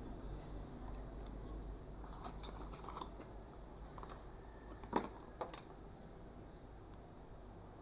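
Handling noise: a paper instruction leaflet and a cardboard box rustling, and light clicks from the white plastic parts of a car phone holder being picked up. A cluster of rustles comes about two to three seconds in and the sharpest click about five seconds in, then it goes quieter.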